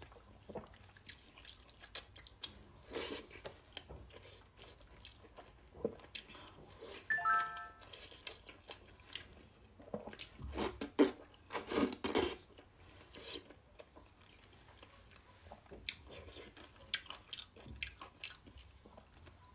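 Close-miked eating of soft, fatty braised pork belly: wet chewing, lip smacks and sucking slurps, with a cluster of louder slurps a little past halfway.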